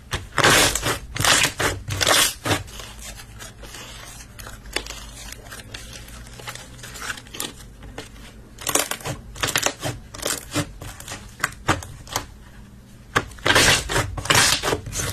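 Slime being squeezed and pressed by hand, giving bursts of crackling, clicking squelches: a cluster at the start, another after a quieter stretch in the middle, and a third near the end.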